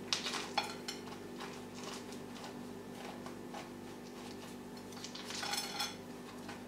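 Bark potting chips dropped by hand into and around a small plastic orchid pot, making light scattered clicks and rattles: a few near the start and a denser patch about five seconds in. A steady low hum sits underneath.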